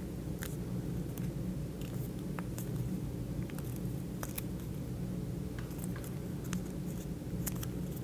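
Origami paper rustling and crackling with scattered small ticks as it is folded and creased by hand, over a steady low hum.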